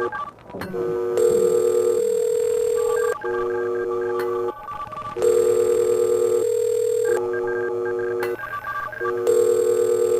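Electronic telephone ringing and line tones, a steady chord of tones that repeats in a cycle about every four seconds, with short breaks between.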